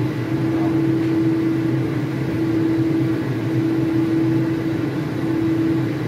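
Steady hum of a kitchen fan with a constant drone, over loofah and egg simmering in their own water under the glass lid of a wok.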